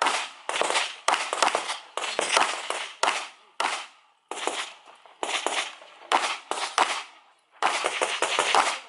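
Handgun shots fired rapidly by a competitor shooting an IPSC stage: mostly quick pairs and short strings, with brief pauses between strings. The shots are sharp cracks with a short echo, and the firing stops near the end.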